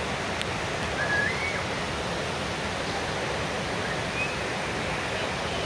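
Steady hiss of rain falling on the rainforest, with a short rising whistle about a second in.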